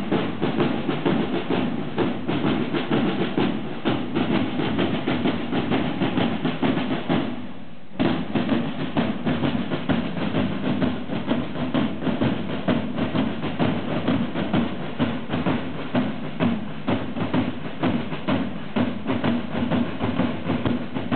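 Parade side drums of a marching drum corps beating a steady, dense rhythm. The drumming fades and breaks off shortly before eight seconds in, then resumes abruptly.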